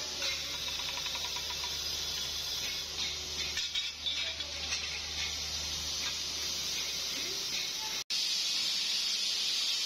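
Electric polishing (buffing) wheel spinning with a steady hiss as a steel safeguard pipe is pressed against it, over a low motor hum that drops away about eight seconds in.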